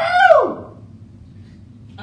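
A person's loud "woo!" whoop of celebration, rising and then falling in pitch and over within about half a second, followed by quiet room noise.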